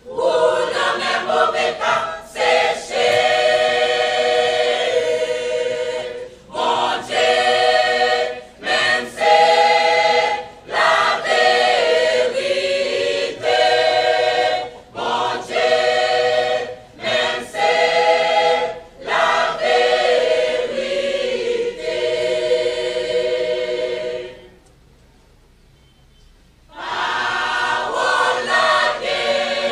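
Large mixed church choir singing a worship song in phrases separated by brief breaths, with a pause of two or three seconds near the end before the voices come back in.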